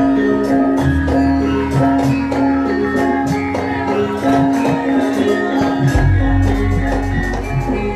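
Live Javanese gamelan music for a lengger dance: a steady run of struck percussion over a held note, with a deep bass coming in about a second in and again near six seconds.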